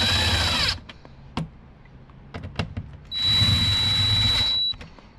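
Power drill/driver tightening the speaker's mounting screws in two runs, a short one ending just under a second in and a second of about a second and a half starting about three seconds in, each with a steady high whine. Light clicks and taps of handling come between them.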